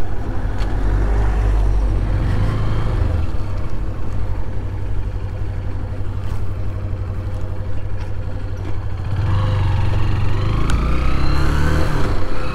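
Motorcycle engine running at low revs through a slow turn, then accelerating from about nine seconds in, its pitch rising, with a brief dip near the end.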